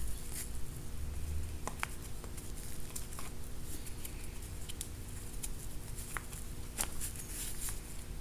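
Hands handling a padded lifting-hook wrist strap and its coated metal hooks: scattered soft rustles and small clicks, over a low steady hum.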